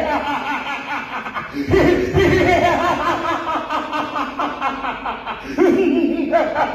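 A man's loud theatrical villain's laugh as King Kansa, long runs of rapid 'ha-ha-ha' broken by short pauses about two and five and a half seconds in.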